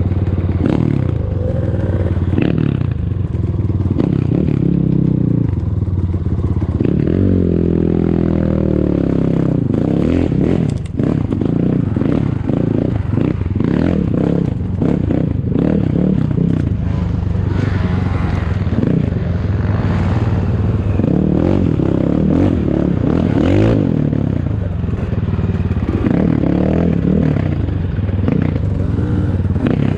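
ATAKI DR 250 enduro motorcycle engine running under load off-road, its revs rising and falling with the throttle, with frequent knocks from the bike over rough ground.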